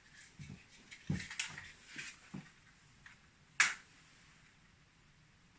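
Faint handling clicks and rustles, then one short, sharp strike about three and a half seconds in: a light being struck to set the paper and kindling in a brick wood stove alight.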